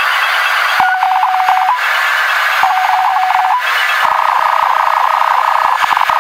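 Radio static hiss alternating with buzzing, rapidly pulsing tone bursts about a second long, each ending in a brief higher tone. From about four seconds in it turns into a steadier warbling tone under the hiss.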